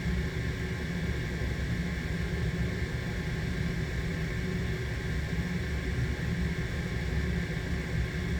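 Steady low rumble and hiss of running machinery, with a faint steady hum.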